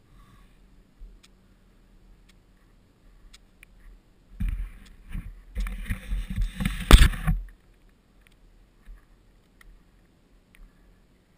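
Close rustling and thumping on a helmet-mounted camera's microphone for about three seconds from the middle of the stretch, ending in one sharp knock.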